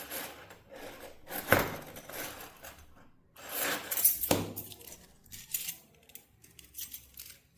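Small metallic clicks and jingling as a Victorinox Classic pocket knife is handled, in irregular bursts, loudest about a second and a half in and again around four seconds in, then fainter clicks.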